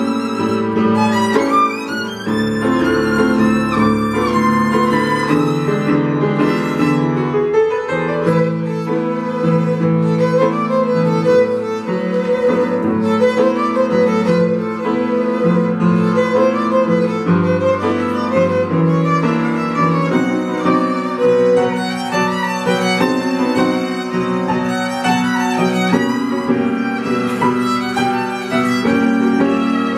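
Violin played with a bow, accompanied by an upright piano: a continuous melodic duet.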